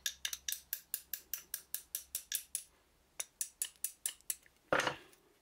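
Quick, light metallic taps of a small hammer on the seized sliding jaw of a Bahco model 31 adjustable wrench, about six clicks a second, thinning out after about two and a half seconds. Near the end there is one louder, longer scraping clatter as the jaw works free.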